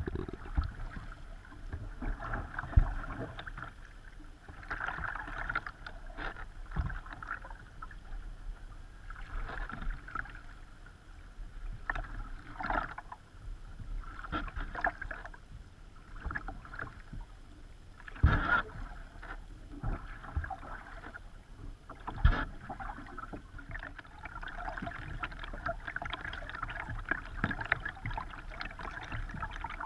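Kayak paddling: water splashing and swishing with each paddle stroke, every two to three seconds, with a few sharp knocks.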